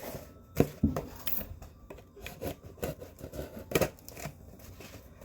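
Cardboard shipping box being handled and opened: a few sharp knocks and taps with scraping and rubbing of cardboard in between.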